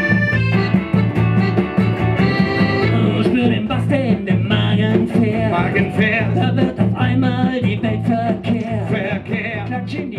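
Small live band playing an upbeat song on accordion and guitars, with a man singing from about four seconds in.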